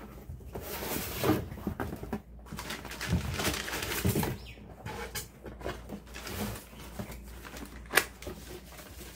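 A large corrugated cardboard shipping box being opened by hand: flaps folded back and scraped, with cardboard rustling and rubbing. Near the end there is one sharp knock as an inner box is lifted out by its handle.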